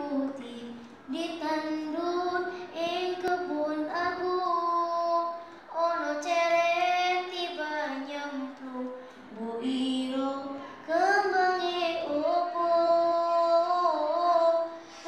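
A young girl singing solo and unaccompanied, in long held, ornamented phrases with short breaks between them.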